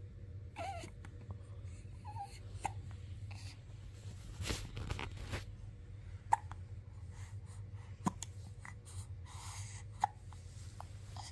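Baby hiccuping: three short, sharp hiccups about two seconds apart in the second half, with a brief little baby vocal sound near the start.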